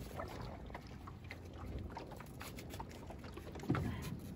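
Wind buffeting the microphone over water lapping at the hull of a small open boat, with faint scattered clicks and a thump near the end.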